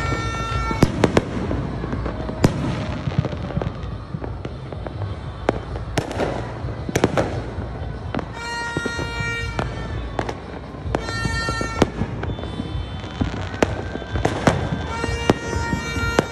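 New Year fireworks going off: aerial shells and firecrackers bang at irregular intervals over a constant rumble of distant explosions. A steady horn-like tone sounds several times, each for about a second.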